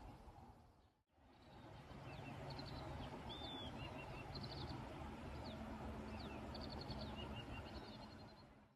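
Small birds chirping and trilling in short, high calls over steady low outdoor background noise, after a brief dropout about a second in.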